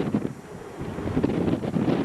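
Strong wind buffeting the camera microphone in uneven gusts, a low rumbling noise that swells and dips.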